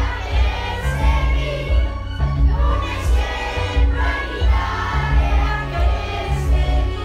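A song: voices singing a melody together over instrumental accompaniment with a steady, stepping bass line.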